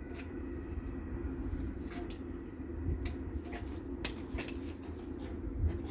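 Light metallic clinks and knocks over a steady low hum. They are scattered and come more often from about two seconds in, as metal parts shift while the engine is let down slowly on a jack.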